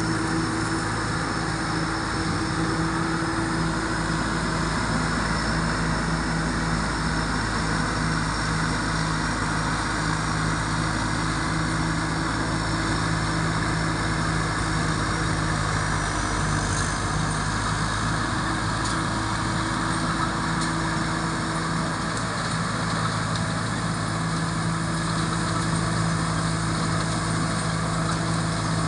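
Thai-built rice combine harvester with a Hino J08C turbocharged diesel engine running steadily, a thin high whistle over its even engine note.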